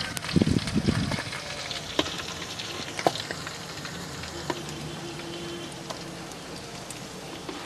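Nokshi pitha frying in hot oil, with a steady sizzle. A burst of knocks and clatter comes about half a second in, and a few sharp ticks follow later.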